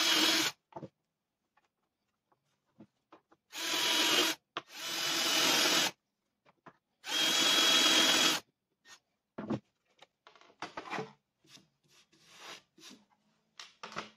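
Cordless drill with a 5 mm shelf-pin bit boring a row of shallow shelf-pin holes through a drilling jig into a wooden panel. It makes four short runs, each with a whine and each stopping abruptly. From about eight seconds in there are only light knocks and scrapes as the drill and jig are handled and set down.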